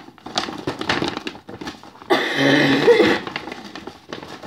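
Paper gift bag rustling and crinkling as a hand rummages inside it for a card. About two seconds in comes a loud, raspy, growl-like vocal noise lasting about a second, followed by more rustling.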